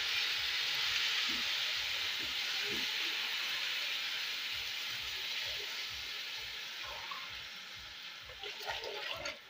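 Rice and beef frying in oil in a pot, a steady sizzle that slowly fades, with water pouring from a jug into a glass. The rice is browning in the oil just before the water goes in.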